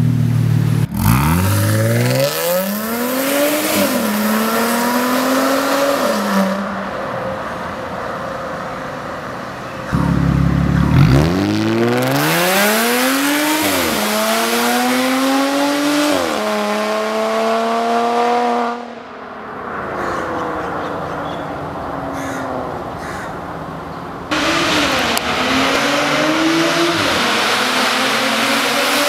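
Audi S5 with a catless Fi valvetronic exhaust, valve open, accelerating at full throttle through the gears in several runs: each time the engine note climbs and drops back at the upshifts. One run fades as the car pulls away, then another loud run starts.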